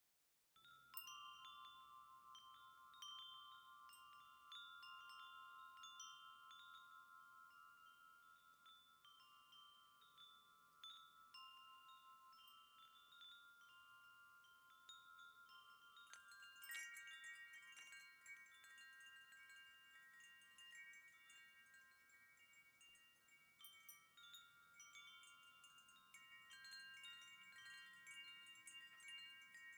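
Wind chime ringing, its tones struck again and again and left to ring, overlapping. It starts suddenly out of silence about half a second in. A second set of higher tones joins about halfway through.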